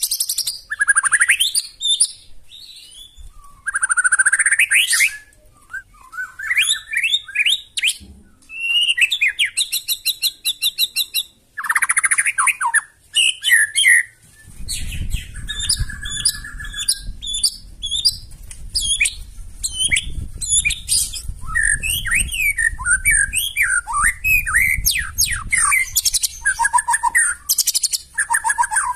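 White-rumped shama singing a loud, varied song of whistled glides, fast trills and rapidly repeated harsh notes, with a low rumble underneath from about halfway through.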